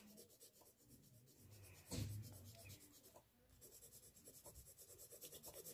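Faint pencil scratching on paper: one short stroke about two seconds in, then soft light scratches near the end, with near silence between.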